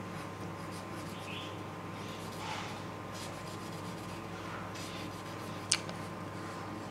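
Felt-tip marker rubbing on paper as an area is coloured in, with one sharp click about five and a half seconds in.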